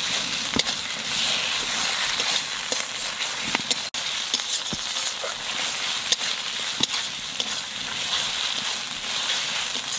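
Spice paste frying and sizzling in oil in an aluminium kadai while a spatula stirs it, with short scraping clicks against the pan. It is the masala of ground ginger-garlic, cumin-coriander and chillies being fried down.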